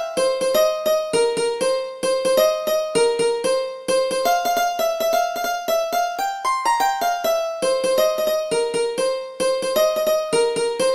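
Sitar playing a melody in quick plucked notes, a few notes a second, in short phrases that rise and fall and repeat.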